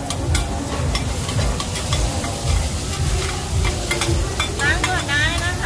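Green-mussel omelettes (hoi tod) sizzling in oil on a large flat pan, with metal spatulas scraping and clicking against the pan as the cook works them.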